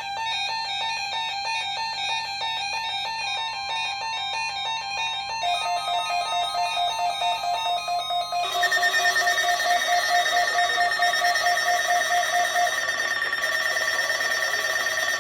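Several weather radios sounding their electronic alert alarms at once, rapid repeating beeps in overlapping pitches. A second beep pattern joins about five seconds in, and the sound gets louder and denser about three seconds later as more radios set off.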